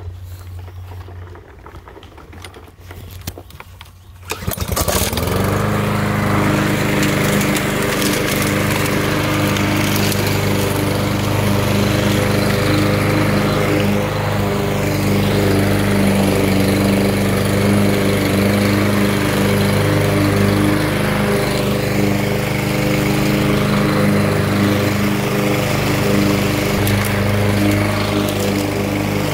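Craftsman M260 walk-behind lawn mower's gas engine pull-started about four seconds in: it catches, rises to speed and then runs steadily at an even pitch while mowing grass.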